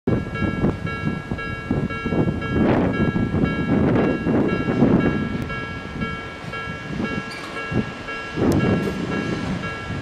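Japanese railway level-crossing alarm ringing with several steady high tones, over the rumble of trains on the tracks, with irregular heavy knocks from the wheels.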